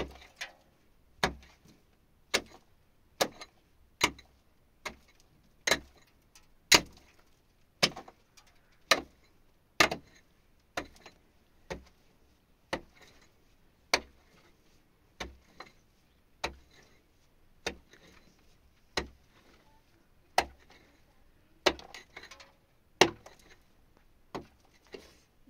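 Pickaxe striking into the earth and rock of a cave wall, sharp single blows about once a second.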